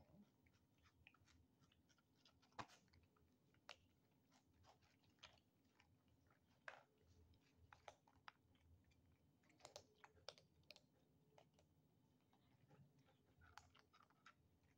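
Faint, irregular crunching and clicking of kittens chewing dry kibble from a plate.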